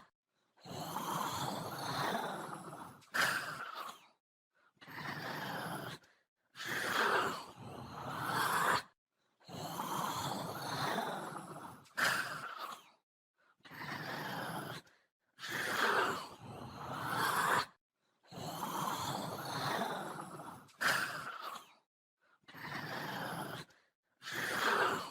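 Zombie growls and groans voiced by a person: a long run of raspy moaning breaths, each one to two and a half seconds long, separated by short silences.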